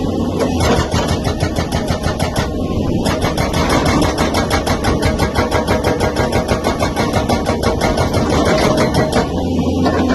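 SSI 81 hydraulic breaker on a Tata Hitachi excavator hammering in a fast, even run of about eight blows a second. It starts about half a second in, breaks off briefly near three seconds and stops shortly before the end.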